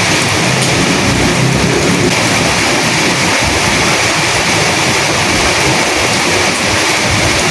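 Steady rain with wind: a dense, unbroken hiss of rainfall.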